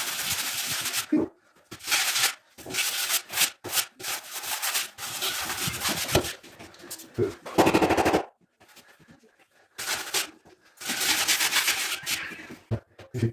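Walls being sanded with sandpaper: rasping scraping strokes in bursts, broken by short pauses.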